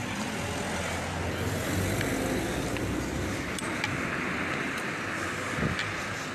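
Steady road traffic noise from a street, with a few faint taps.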